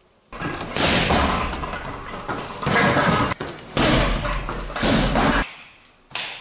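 Kicks striking a heavy punching bag: about five loud, heavy slams, each with a long echoing tail, the later ones over a deep low rumble.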